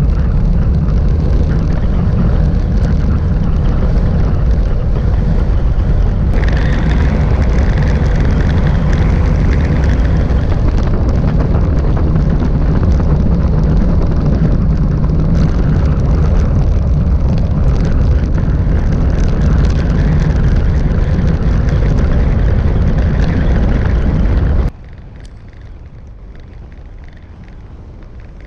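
Wind buffeting the microphone of a camera on a moving road bike: a loud, steady low rumble. About 25 seconds in it drops abruptly to a much quieter rushing.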